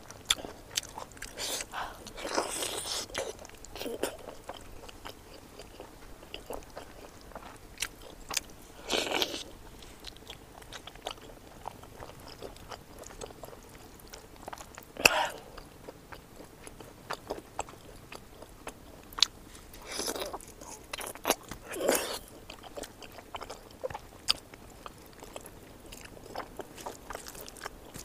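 Close-up chewing and mouth sounds of a person eating pork curry and rice by hand, with many small smacking clicks and a few louder bites and crunches, the loudest about halfway through.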